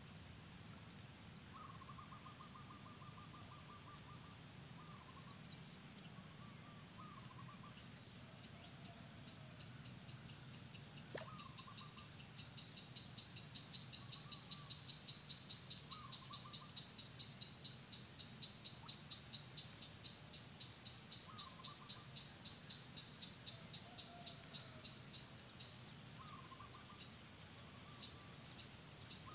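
Insects and birds: a steady high insect buzz, a fast pulsing insect trill that builds through the middle, and short repeated bird calls. One sharp click comes about eleven seconds in.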